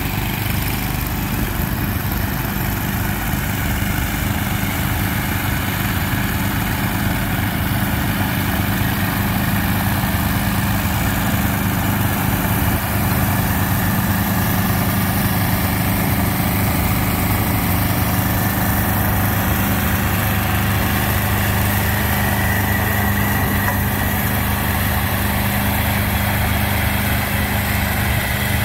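Small garden tractor engines running steadily under load as Allis-Chalmers garden tractors pull plows and a rear tiller through dry soil.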